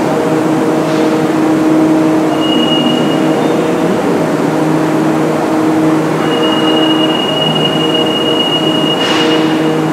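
Alstom NS16 metro train standing at the platform, its equipment giving a steady hum of several low tones. A high steady tone sounds briefly about two and a half seconds in and again for the last four seconds, and a short hiss of air comes about nine seconds in.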